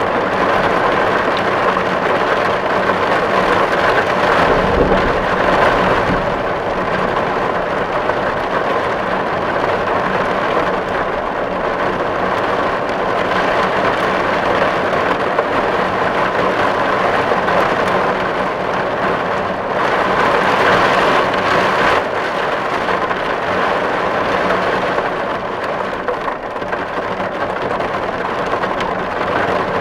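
Rain falling steadily on a tin roof, a dense, even patter of drops on metal. A brief low rumble comes about five seconds in.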